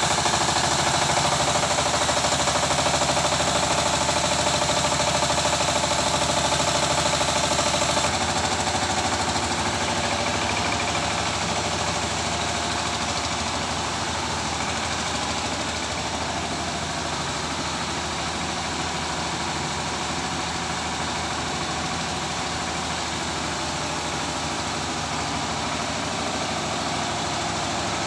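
Vertical poultry-feed mixing machine running steadily, its engine and the feed churning inside making a constant mechanical din that becomes a little quieter about eight seconds in.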